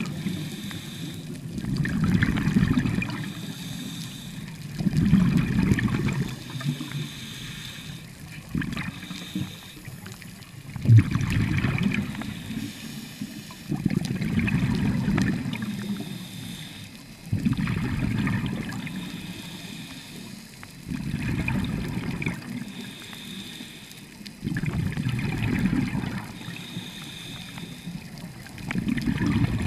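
Scuba diver breathing through a regulator underwater: a low bubbling rush of exhaled bubbles about every three seconds, with a thin hiss of inhalation between them. A single sharp knock about eleven seconds in.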